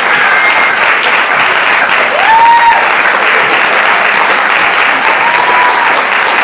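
Audience applauding steadily, with two short rising calls heard over the clapping, one about two seconds in and another near the end.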